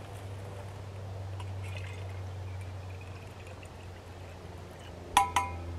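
Filtered water trickling from a Sawyer squeeze filter into a soft collection bag, the filter slowed by the sediment in the muddy water. A short, sharp squeak about five seconds in.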